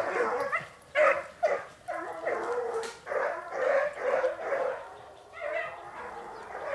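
Several young Gascon hounds baying and yelping in a string of short, overlapping calls, growing weaker in the last couple of seconds.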